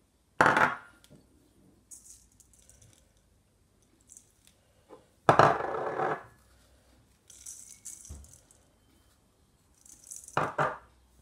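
Small glass bowls clinking and knocking against a stainless steel mixing bowl, three loud times, as dry seasonings are tipped out over fish. Fainter hissing of spice powder falling in between.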